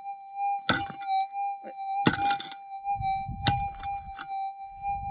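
A pick striking rocky ground, four blows about a second and a half apart, the one about two seconds in the loudest. Under them runs the steady high tone of a Minelab metal detector lying beside the hole.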